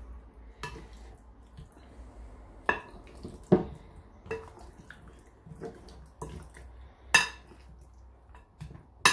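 Spoon knocking and scraping against a glass mixing bowl as chicken drumsticks and vegetables are turned in a thick marinade: irregular knocks, about one a second.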